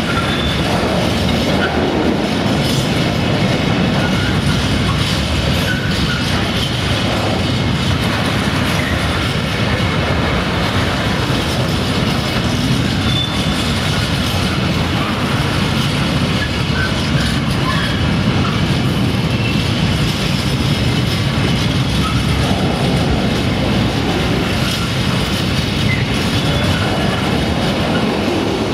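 Open-top freight wagons rolling past at close range: a steady, loud rumble of steel wheels on rail, with clacking over rail joints and scattered brief squeals of wheel flanges on the curving track.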